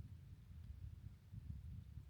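Quiet outdoor background: a faint, uneven low rumble with no distinct sound event.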